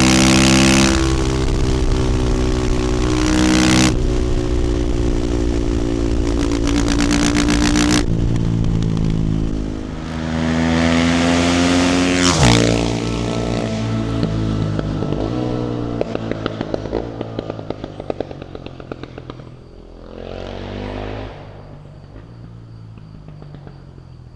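2018 Husqvarna FE450's single-cylinder four-stroke engine through an Akrapovic exhaust, pulling on the throttle and revving up about halfway through. Then the throttle closes and the exhaust pops rapidly on deceleration, a short blip of throttle comes near the end, and the engine sound fades away.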